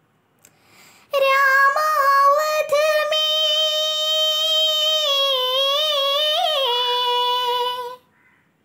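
A girl singing unaccompanied, holding one long high note for about seven seconds that wavers with vibrato and slides lower near the end.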